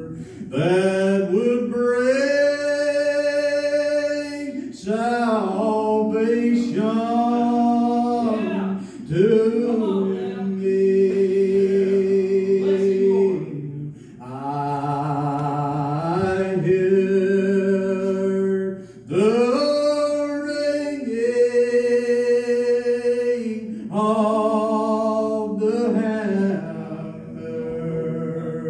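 A man singing solo a cappella, with no instruments: long held notes, often slid up into, in phrases separated by short breaks for breath.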